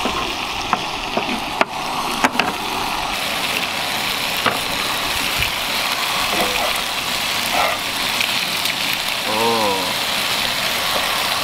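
Thin marinated steak sizzling in a hot cast-iron skillet, with metal tongs and a knife clicking and scraping against the pan every second or so.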